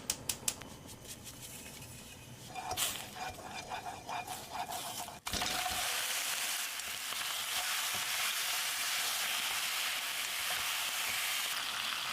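Food sizzling steadily in a hot frying pan, starting abruptly about five seconds in after a few light clicks and knocks of kitchen utensils.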